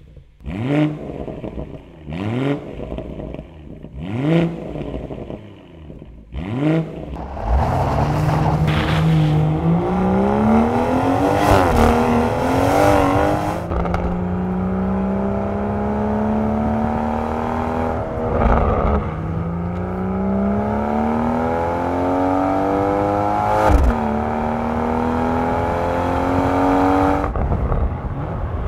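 BMW M140i's 3.0-litre turbocharged straight-six through a QuickSilver valved sports exhaust: four sharp throttle blips at standstill, then the engine pulling hard up through the gears, pitch rising steadily and dropping at each upshift, about three times, with a short crack at the later shifts.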